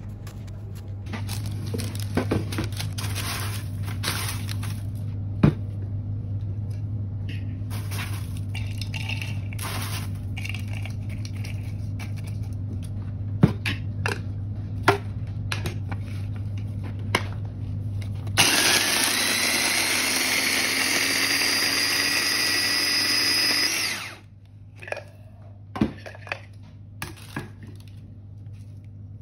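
Dry bread pieces crackle and click as they are handled and tipped into a small food-processor bowl. Then the food processor's motor runs for about five seconds, its whine rising slightly as the blade grinds the dried bread into fine crumbs, before it stops suddenly. A few light knocks follow.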